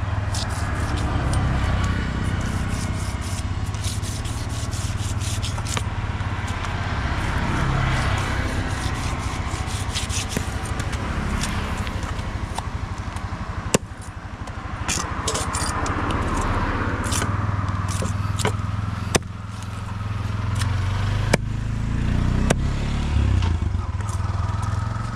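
A knife scraping the scales off a large fish, a continuous rasping with many short sharp clicks, over a constant low hum.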